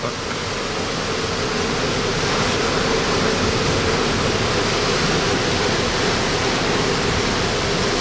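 Steady rushing noise of wind and rain in the aftermath of Hurricane Idalia's landfall.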